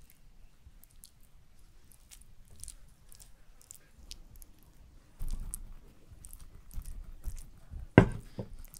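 Metal spoon scooping sticky jam from a wooden bowl and dropping it onto biscuit dough, with small wet squishy clicks. A single sharp knock about eight seconds in.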